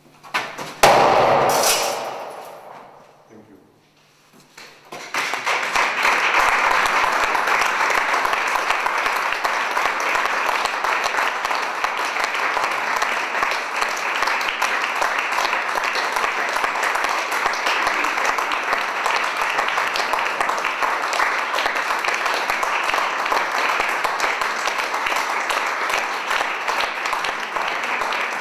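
Audience applauding steadily from about five seconds in, after a brief loud sound about a second in that fades over two or three seconds.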